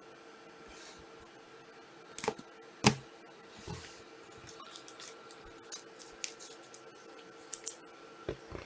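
Trading cards and plastic card holders being handled on a table: light rustles and scattered sharp clicks, the two loudest a little over two seconds in and about half a second apart, over a faint steady hum.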